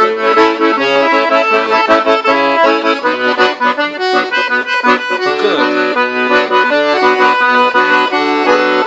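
Button accordion playing a quick melody of short, changing notes over its bass and chords.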